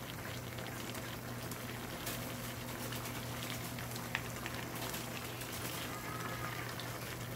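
Duck stew broth simmering in a wok: a steady bubbling crackle, with a steady low hum under it and one sharp tick about four seconds in.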